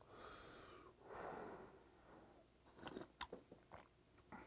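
Faint sipping and breathing over hot soup broth: two soft hissy breaths or slurps in the first two seconds, then a few small mouth clicks about three seconds in.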